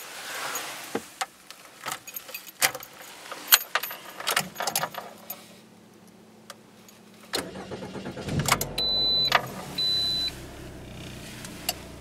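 Keys jangling and clicking in the ignition of a 2013 Lada Granta's 1.6-litre petrol four-cylinder, then about seven seconds in the engine starts and settles into a steady idle. Two short high electronic beeps sound just after it starts.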